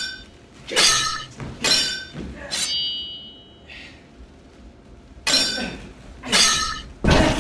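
Added sword-clash sound effects for a katana fight: three sharp metallic clangs about a second apart, each with a high ring after it. After a pause come two more clangs and a heavier, deeper hit near the end.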